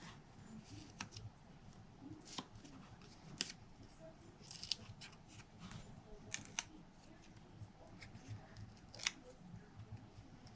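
Faint, scattered clicks and light rustles of paper-craft materials being handled by hand.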